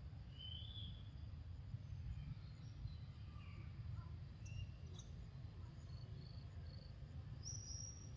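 Outdoor ambience: a few faint, short high chirps scattered through, over a low steady rumble.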